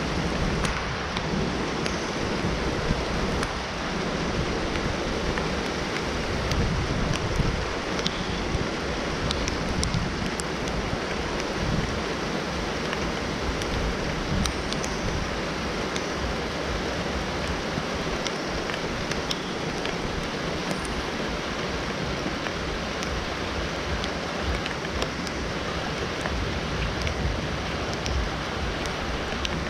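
Steady rain, a dense even hiss, with a low rumble that is stronger during the first several seconds and scattered faint ticks.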